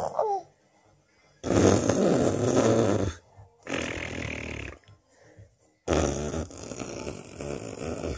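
Baby blowing raspberries: buzzing, spluttering lip trills in three bursts, the first the loudest.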